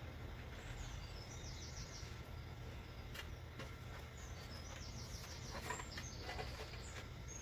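A bird singing in the background: two short runs of quick, high, falling notes, about a second in and again about four and a half seconds in, over a low steady hum, with a few faint clicks.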